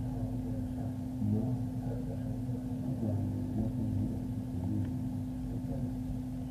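Muffled, indistinct background talk, too low and dull for words to be made out, over a steady low hum and rumble.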